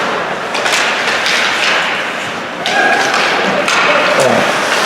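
Repeated sharp thuds and knocks from play in an ice hockey rink, the puck and sticks striking the boards, echoing over steady hall noise.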